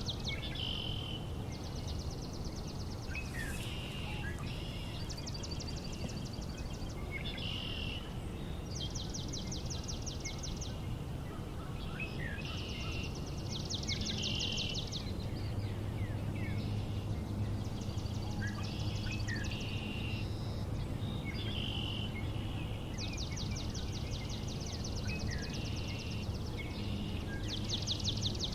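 Songbirds singing: a rapid high trill lasting about a second, repeated every two to three seconds, with shorter lower chirps and down-slurred notes between the trills. A steady low rumble of background noise sits beneath.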